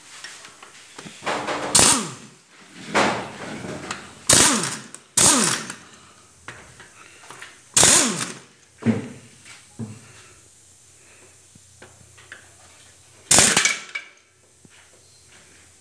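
A power tool unscrewing the bolts of an engine cover in several short bursts, each winding down in pitch as the trigger is released, with small clicks and handling of parts in between.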